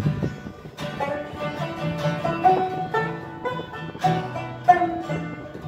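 Banjo and acoustic guitar playing an instrumental passage without vocals. Plucked notes ring out and fade, growing a little quieter toward the end.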